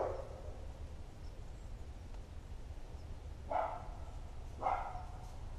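A dog barking: one short bark at the start, then two more about a second apart near the end, over a steady low rumble.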